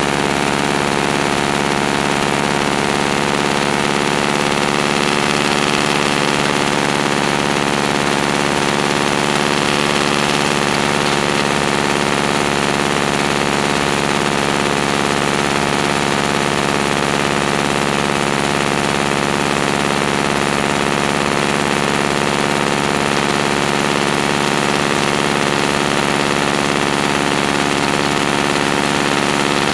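A Stearman biplane's radial engine and propeller drone steadily at a constant pitch in level flight, with the rush of wind over the wing-mounted camera.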